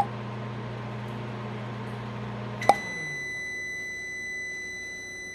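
Frigidaire FFCE1455UD microwave oven running with a steady hum, then cutting off with a click about two and a half seconds in as the hum falls away. It then gives one long, loud, high-pitched beep of about three seconds: the signal that cooking is done.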